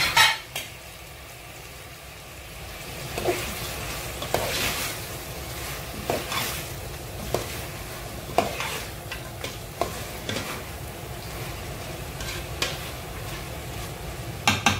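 Chicken pieces sizzling as they fry in an aluminium pot, stirred with a spatula that scrapes and knocks against the pot about once a second. There is a loud clatter right at the start.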